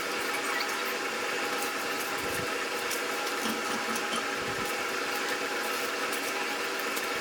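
Oxy-fuel cutting torch cutting steel plate: a steady hiss with scattered sharp crackles, over a steady engine hum.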